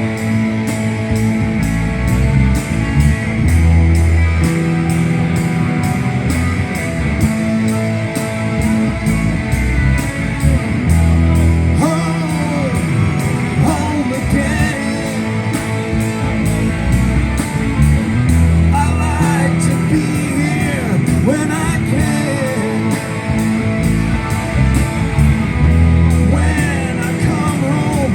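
Live rock band playing: electric guitar, bass and drum kit with a steady beat, with singing.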